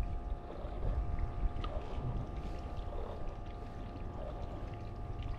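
Steady hum aboard a fishing boat, a faint even whine over a low rumble, with a few light handling knocks.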